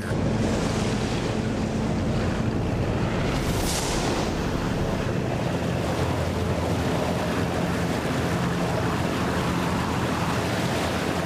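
Rough sea waves and wind buffeting the microphone, over the steady low hum of a boat engine. About three and a half seconds in there is a brief hissing burst.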